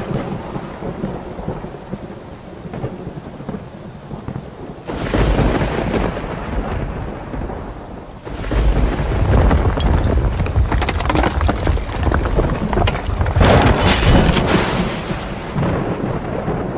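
Thunderstorm: thunder rolling over steady rain. A rumble fades over the first few seconds, another swells about five seconds in, and a longer, louder roll builds from about eight seconds in.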